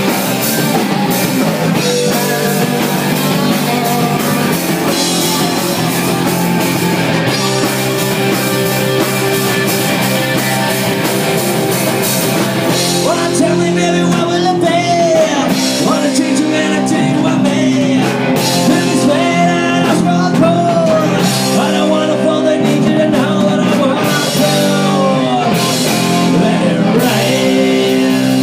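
A rock band playing live, with electric guitars and a drum kit, loud and continuous.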